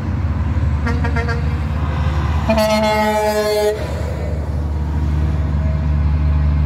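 Semi-truck air horns honking: a few quick short toots about a second in, then one long blast lasting about a second midway. Underneath is the steady rumble of big diesel truck engines, growing louder toward the end as a semi approaches.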